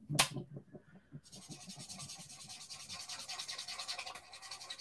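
Stampin' Blends alcohol marker rubbing on cardstock in quick back-and-forth colouring strokes, a steady fine scratching. A sharp click comes just before it.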